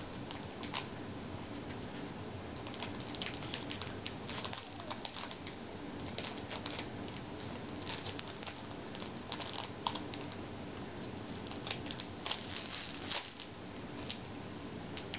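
Rustling and scattered soft crinkles and clicks of a foil trading-card booster pack being opened and its cards handled.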